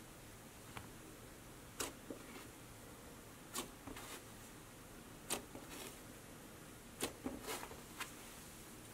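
Soft orange cloud slime being stretched, folded and pressed by hand, giving about ten faint, sharp sticky pops and crackles at irregular intervals, some in quick clusters.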